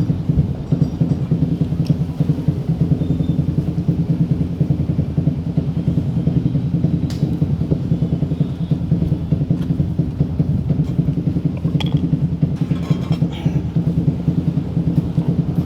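Yamaha Mio i 125 scooter's single-cylinder four-stroke engine running steadily at idle after a top-end overhaul, with a fast, even, low pulsing.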